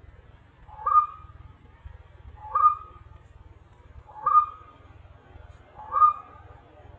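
White-breasted waterhen calling, the same short call repeated four times at an even pace, about every second and a half to two seconds.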